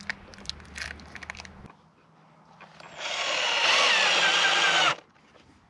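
Power drill driving a screw into the wooden frame for about two seconds, its whine dropping slightly under load before it stops abruptly. A few light knocks come before it.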